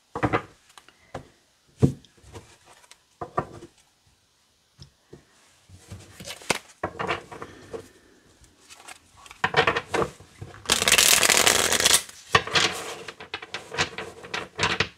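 A deck of tarot or oracle cards being shuffled by hand. Irregular taps and slides of the cards run throughout, with one dense, loud run of shuffling lasting about a second, about two-thirds of the way in.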